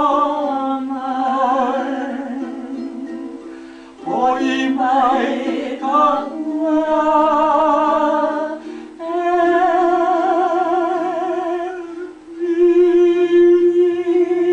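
Live hula song: a voice singing long held notes with vibrato over a plucked string accompaniment, phrase after phrase, with short breaks between phrases about four and twelve seconds in.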